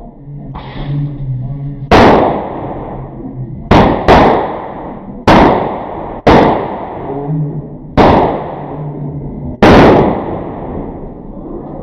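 Mini triangle firecracker repeater going off: seven sharp bangs at uneven intervals, some less than half a second apart and others nearly two seconds apart, each with a short echoing tail.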